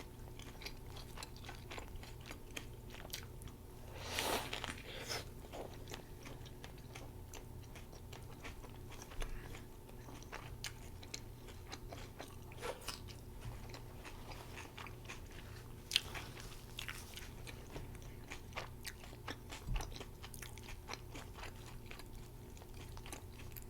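Close-miked chewing of a burger: soft wet mouth sounds with crisp bites and crunches, a louder bite about four seconds in, over a faint steady hum.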